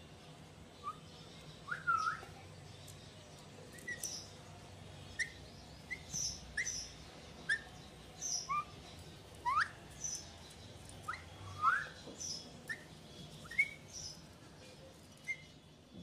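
Alexandrine parakeet giving a string of short chirping whistles, quick rising notes coming irregularly about once a second.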